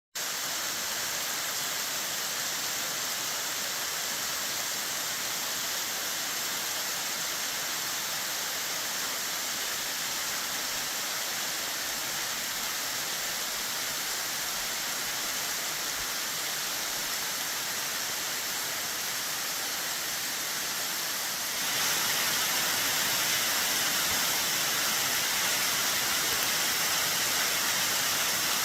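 Waterfall in full spring-runoff flow: a steady rush of water cascading off cliffs, which grows louder and brighter about three-quarters of the way through.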